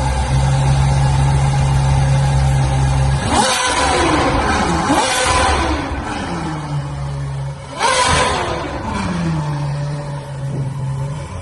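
Ferrari 812 Superfast's naturally aspirated V12 idling steadily, then revved sharply a few times, each rev dropping back to idle with crackles and pops from the exhaust on the overrun.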